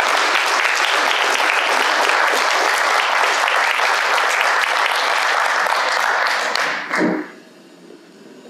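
Applause from a small gathering of council members, steady for about seven seconds and then stopping, followed by a short knock.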